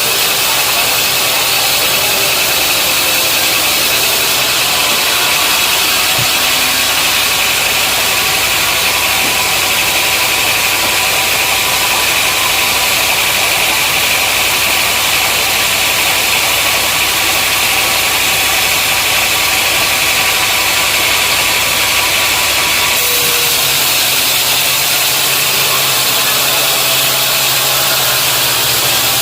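Sawmill machinery running steadily: a loud, even motor noise with a constant hum. A higher hiss joins about four seconds in and falls away about three-quarters of the way through.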